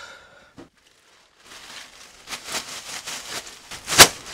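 A leafy bath broom (venik) swishing and rustling over a bare back during a banya steaming, with a run of light pats and one sharp slap about four seconds in.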